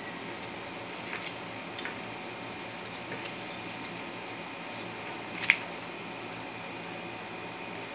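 Paper banknotes being handled on a table: a few brief, faint rustles and crinkles, the sharpest about halfway through, against a steady background hiss.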